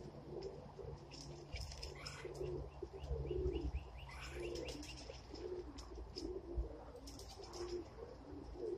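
Domestic pigeons cooing over and over from the loft, their low notes coming in a steady string through the whole stretch.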